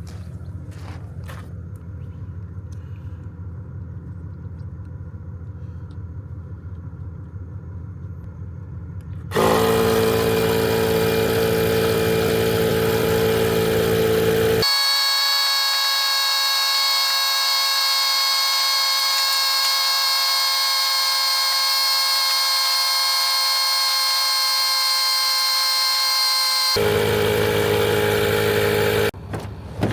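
A low steady rumble, then about nine seconds in a loud held electronic chord starts abruptly. For a long stretch in the middle its bass drops away, then the full chord returns before it cuts off near the end.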